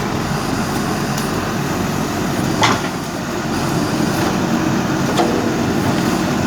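JCB backhoe loader's diesel engine running steadily under work, with a sharp knock about two and a half seconds in and a few fainter clicks.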